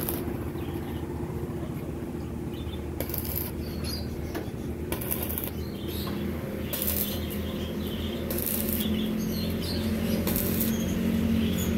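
Arc welder laying short stick-welding bursts on a cracked motorcycle frame joint: the arc is struck about six times, each crackling hiss lasting about half a second, over a steady low hum.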